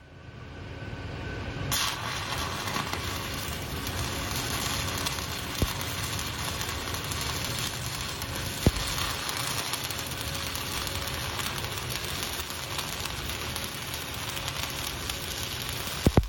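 Shielded metal arc (stick) welding with a cellulose pipeline electrode on steel pipe. The arc strikes up about two seconds in, then runs as a steady hiss, with two sharp pops partway through.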